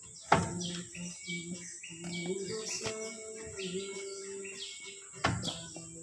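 Toyota Hilux steel rear brake drum being handled onto the wheel hub: two sharp metal knocks, the louder just after the start and another about five seconds later. Background music and birds chirping run underneath.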